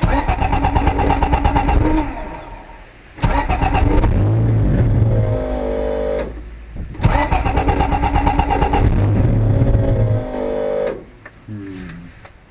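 Honda Del Sol engine cranked on the starter three times in a row, each attempt sputtering for a few seconds and then cutting out without staying running. The tune is still being adjusted for newly fitted 2200cc fuel injectors.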